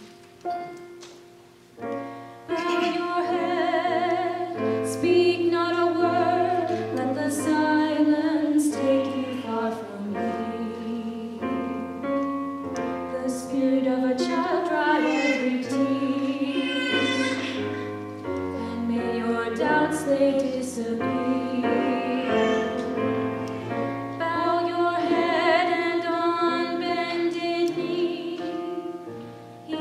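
Voices singing a hymn with keyboard accompaniment. The singing wavers with vibrato over long held bass notes and comes in fully about two seconds in.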